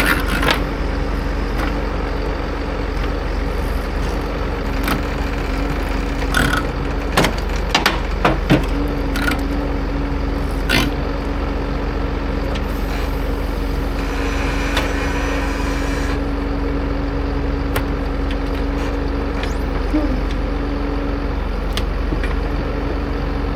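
Ponsse forestry harvester running under hydraulic load as its newly installed rotator and boom are worked: a steady engine rumble with a constant hum-like whine that wavers briefly near the end. Sharp clunks and knocks come through, with a quick run of them about seven to nine seconds in.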